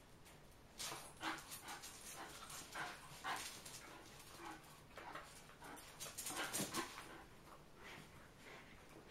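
Two dogs play-fighting, a miniature bull terrier and a smaller dog, with short dog noises and scuffling in quick irregular bursts. The bursts start about a second in, are busiest around three and six and a half seconds, and die down near the end.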